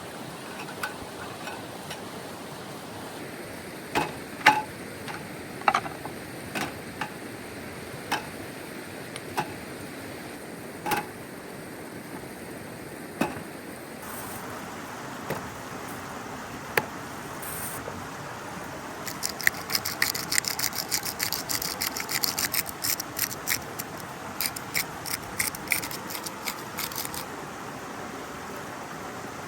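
Steady rushing of river water, with scattered sharp clicks and then a dense run of rapid clicking for about eight seconds in the second half.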